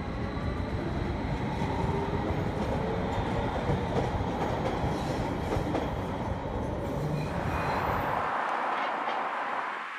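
Detroit People Mover train, a linear-induction-motor train on steel rails, running along its elevated guideway with a steady rumble and a faint whine rising in pitch in the first second. A rushing hiss comes in about seven seconds in, and the rumble cuts off about a second later.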